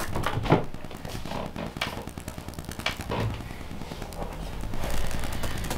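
Scattered small clicks, taps and rustles of a longbow and its leather grip being handled. A steady low hum comes in near the end.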